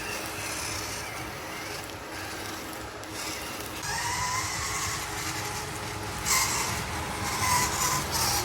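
Mini RC crawler's small electric motor whining in two spells, with a high hiss alongside each.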